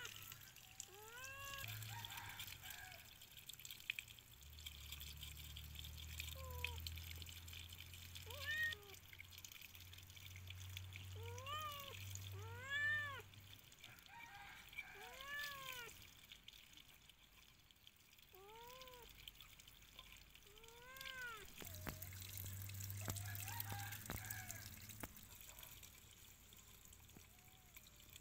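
A cat meowing over and over, about ten short meows, each rising then falling in pitch, with water trickling from a garden hose.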